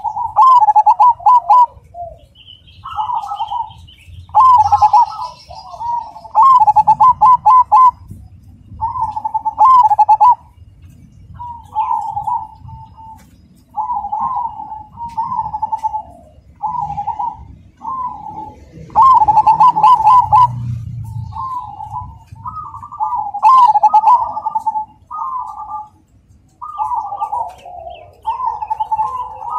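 Zebra dove (perkutut, dark cemani type) cooing loudly, phrase after phrase: each rolling, trilled coo lasts about a second, with short gaps between.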